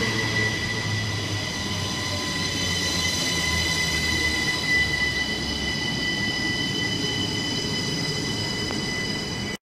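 SNCB Siemens Desiro ML (AM08) electric multiple unit running past on curved track, its wheels squealing in a steady, high-pitched ringing whistle over the low rumble of the carriages.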